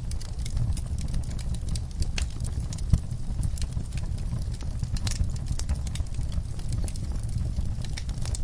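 Wood fire burning in a fireplace: a steady low rumble of flames with frequent small crackles and pops, one sharper pop about three seconds in.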